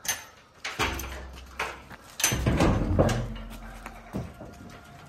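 Metal latches clacking and the steel rear door of a truck's cargo body being worked open, with knocks and thuds of a Simmental calf's hooves shifting on the truck's metal floor. About six sharp knocks, two of them leaving a low boom from the truck body.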